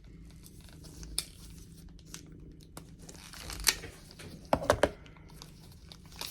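Packaging being handled and opened by hand: intermittent crinkling and tearing, with a few sharp crackles a little past the middle.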